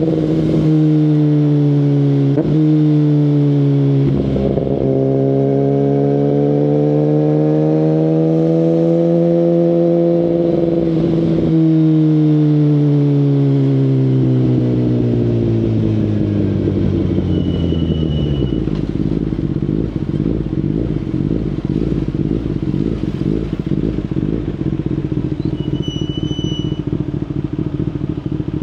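Kawasaki Ninja ZX-10RR's inline-four through an Akrapovic Evolution full carbon exhaust, heard from onboard: running at a steady engine speed with a few brief breaks, then the revs fall away over several seconds about halfway through and settle into a lumpy, low idle.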